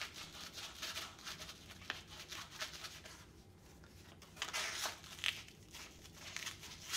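Paper blending stump being roughed up against sandpaper: irregular scratchy rubbing strokes in clusters with short pauses.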